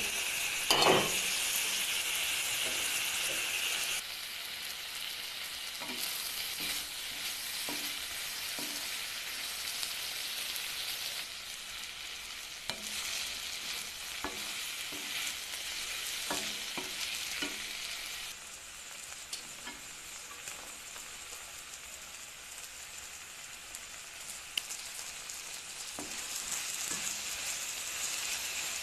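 Onions and tomatoes sizzling in hot oil in a pan while a wooden spatula stirs and scrapes them, making scattered clicks. There are a couple of louder knocks about a second in, and the sizzle drops in level a few times.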